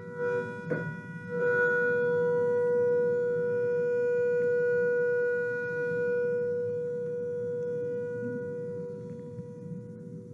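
Sound-bath instruments: three struck tones in the first second and a half ring on as long, overlapping sustained notes that slowly fade, over a low rumble.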